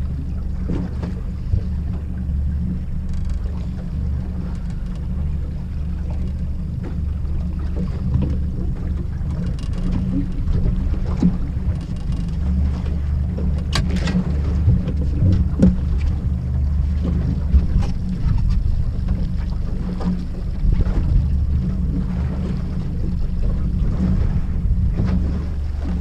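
Small boat's outboard motor running at slow trolling speed, a steady low hum throughout, with water washing against the aluminium hull. A few knocks from the boat, the sharpest about halfway through.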